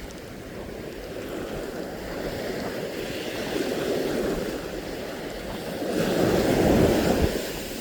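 Surf washing onto a sandy beach, the wash swelling about four seconds in and again louder near the end.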